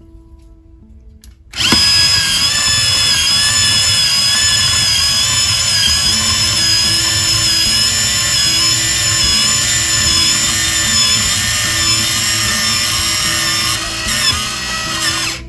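Electric rotating apple peeler's small motor starting about a second and a half in and running with a steady whine as it turns the apple against the peeling blade. It cuts off suddenly just before the end, when the peeling arm reaches the shut-off button at the end of its travel.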